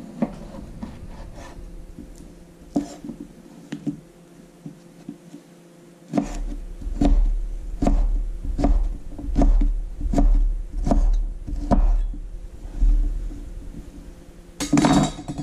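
Chef's knife slicing smoked deer sausage on a wooden cutting board: a few light clicks at first, then from about six seconds in a regular stroke roughly every 0.7 s as the blade goes through the sausage and knocks on the board. A louder, denser burst comes near the end.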